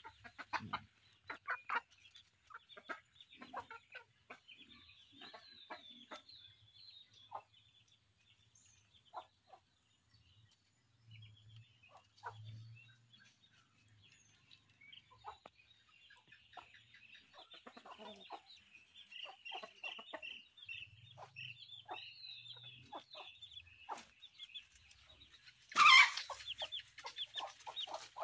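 Chickens clucking and chirping, with scattered small clicks and taps throughout and one much louder sharp sound near the end.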